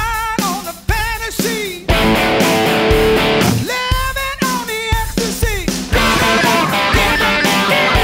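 Electric guitar played over a rock backing track with drums: held lead notes with wide vibrato and string bends alternate with chord hits.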